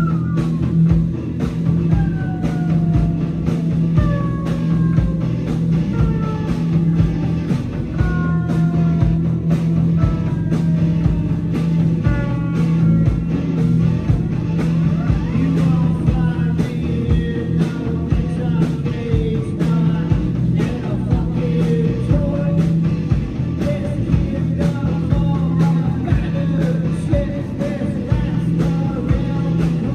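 Live rock band playing a psychedelic rock number: a steady low drone with a regular drum beat, and descending lead lines repeating every couple of seconds.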